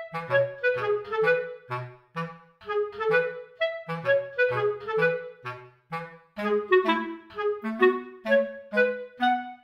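Background music: a bouncy tune of short, detached notes over a bass line.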